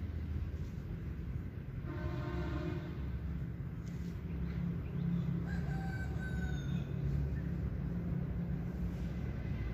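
A rooster crowing twice at a distance, the second crow higher-pitched, over a steady low rumble.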